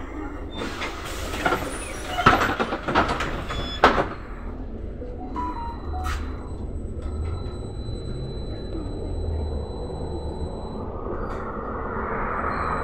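Trolza-5275.06 Optima trolleybus doors working at a stop: a hiss with several clunks and knocks over the first few seconds. A thin high steady tone follows, and near the end the trolleybus moves off, its running noise rising.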